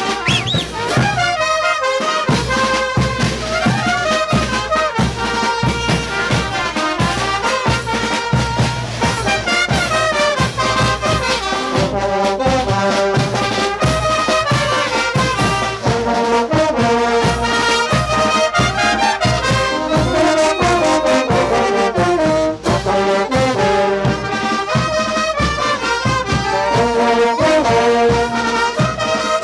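Brass band of trumpets and trombones with drums playing a dance tune over a steady drum beat.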